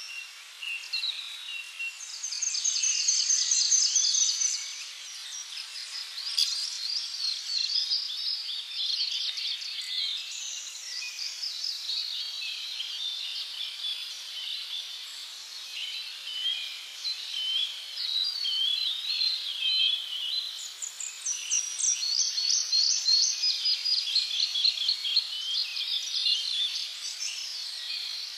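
Chorus of tropical birds chirping and singing, many overlapping calls with bursts of rapid high trills.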